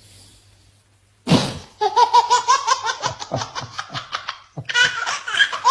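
Baby laughing: after a moment of quiet, a sudden burst, then a fast run of belly laughs at about seven or eight a second, ending in higher, rising squeals of laughter.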